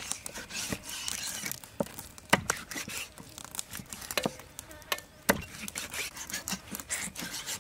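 Meat cleaver chopping a whole fish into steaks on a thick wooden chopping board: irregular knocks of the blade through flesh and bone into the wood, with three heavier blows about two, four and five seconds in.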